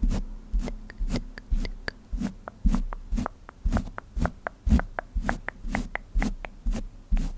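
Soft tapping close to the microphone, about two taps a second, each a dull thud with a light click on top: eyeshadow being patted on.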